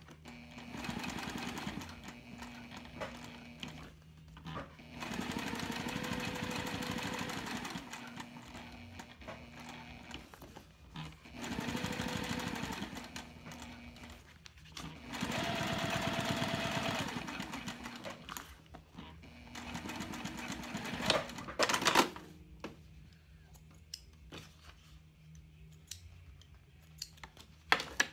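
Juki TL2010Q straight-stitch sewing machine topstitching cork fabric in five short runs with pauses between them, its motor whine rising in pitch as each run speeds up. A few sharp clicks come about three-quarters of the way through.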